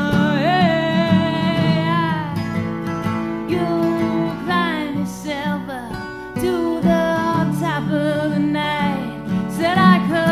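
A song with a singing voice over acoustic guitar.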